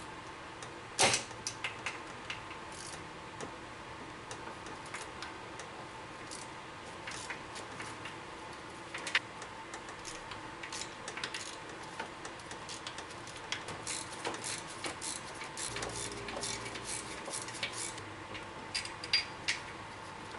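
Irregular metallic clicks and taps of hand tools at work, with a sharper knock about a second in and a denser run of clicks later on.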